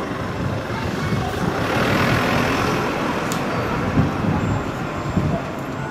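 Road traffic: a vehicle passing on the street, its noise swelling to a peak about two seconds in and then fading.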